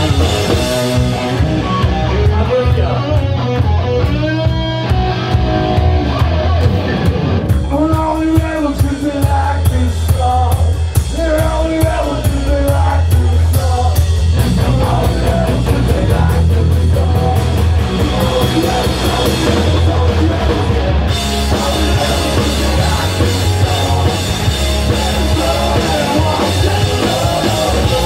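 Live punk rock band playing loud through a small venue's PA: electric guitars, electric bass and drum kit. The drums build from sparse hits to full cymbal-driven playing about seven seconds in, and the cymbals thicken again about two-thirds of the way through.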